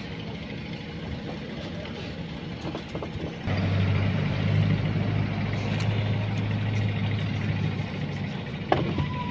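An engine running steadily at idle, a low even hum that grows louder about three and a half seconds in, with a few sharp clicks near the end.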